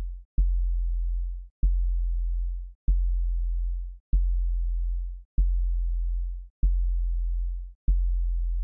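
A deep electronic bass tone pulsing at an even pace, about once every 1.2 seconds. Each pulse starts with a sharp click and holds for about a second before cutting off.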